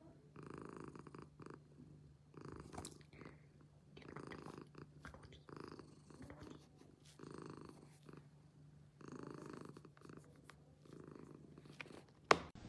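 Domestic cat purring softly, the purr swelling and easing with each breath about every second and a half. A single sharp click comes near the end.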